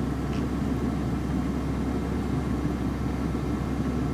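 Steady low engine hum that neither rises nor falls.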